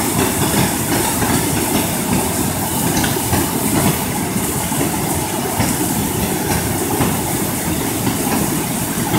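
Steady, unbroken rushing roar of fast-flowing river water, deepest in the low range.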